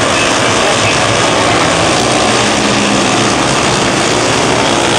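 A pack of wingless 500-class mini sprint cars racing, their engines blending into one loud, steady drone.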